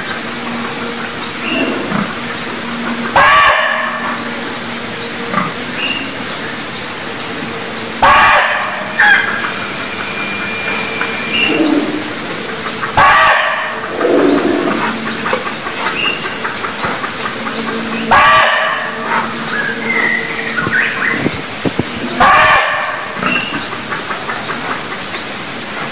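Barking deer (muntjac) giving loud, short single barks, five of them about every five seconds. Behind them runs a steady background of small high chirps repeating under a second apart.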